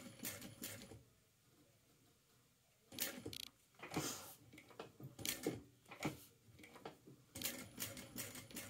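Sewing machine stitching at a quick, even rate, stopping about a second in; a few irregular clicks and knocks follow, and the stitching starts again near the end.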